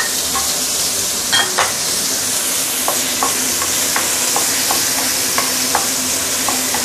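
Ginger slices and minced garlic sizzling in hot oil in a stainless steel wok, stirred with a wooden spatula. A steady sizzle with scattered small ticks and scrapes from the spatula.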